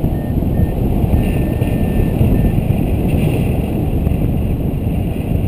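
Wind rushing over the microphone of a paraglider in flight, a steady heavy buffeting. Through the first half come faint, evenly repeated high beeps of a flight variometer.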